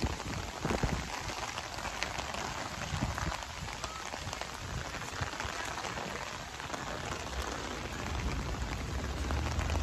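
Heavy rain pattering steadily onto standing floodwater on a street, a dense hiss of drops on water, with a low rumble underneath that grows stronger near the end.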